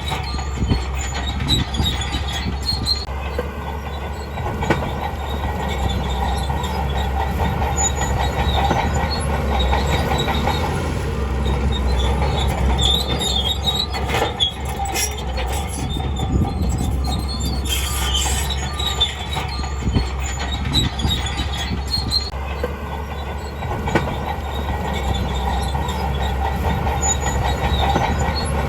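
Shantui DH17C2 crawler bulldozer working: its diesel engine runs steadily while the steel tracks clank and squeal again and again.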